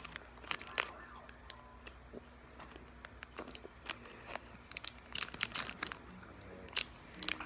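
A plastic candy wrapper crinkling as it is handled and opened, in short clusters of sharp crackles a second or two apart.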